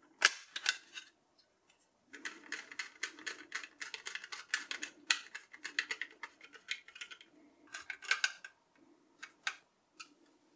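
A few sharp plastic clicks as a 2.5-inch SSD is pressed into a plastic drive adapter frame. After that comes a long run of quick scratchy clicks from a hand screwdriver turning small screws through the frame into the SSD, with a few more clicks near the end.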